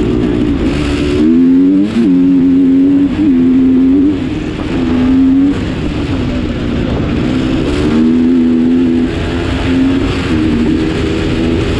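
A motor vehicle's engine running under way, its pitch rising and dropping several times as the throttle is opened and eased off.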